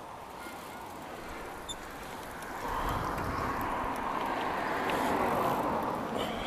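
A car overtaking on the road, its tyre and engine noise swelling from about two and a half seconds in, loudest near the end, then easing off, over a steady background hiss.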